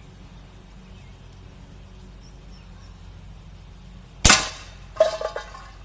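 A single shot from a Beeman Dual spring-piston air rifle: one sharp crack a little over four seconds in. About 0.7 s later comes a metallic ring with a short rattle as the pellet strikes a metal target on the target board.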